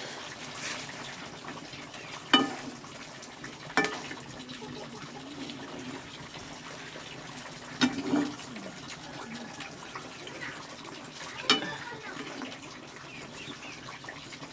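Water running or splashing steadily, with four sharp knocks of something hard struck or set down.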